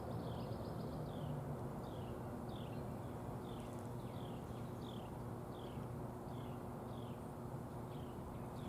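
A bird repeating a short, high, falling chirp about three times every two seconds, over a steady low hum.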